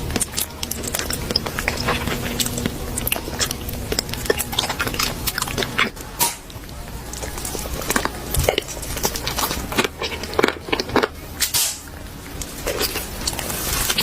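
Close-miked eating: a person biting and chewing food, with many short, sharp mouth clicks through the whole stretch.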